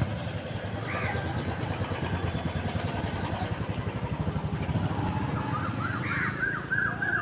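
Steady low rumble of an engine running, with a single call about a second in and a quick run of short, high calls near the end.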